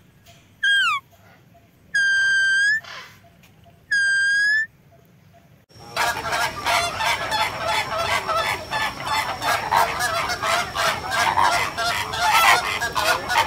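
A few loud, clear, high calls come first: one drops steeply in pitch, and two are held level for under a second each. From about six seconds in, a flock of flamingos honks and gabbles continuously in a dense overlapping chorus, with a thin, steady high whine above it.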